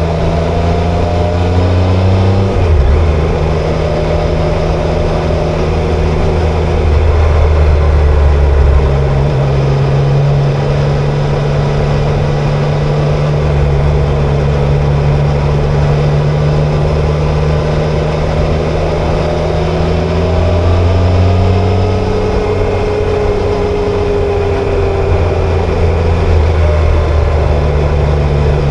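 Triumph Tiger Sport 660's three-cylinder engine and exhaust running under way, with a steady low drone whose pitch steps up and down several times as the revs change.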